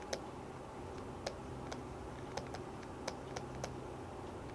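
Faint, irregular clicking, about a dozen sharp little clicks spread unevenly, over a low steady room hum.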